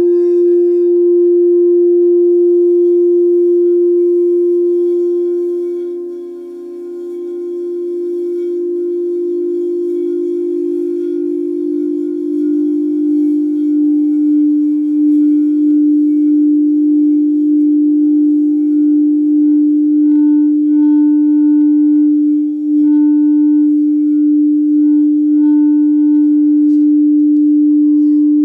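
Quartz crystal singing bowls played with a mallet, ringing in long steady overlapping tones. One tone fades about six seconds in, a slightly lower bowl swells up about halfway, and a higher tone pulses in and out near the end.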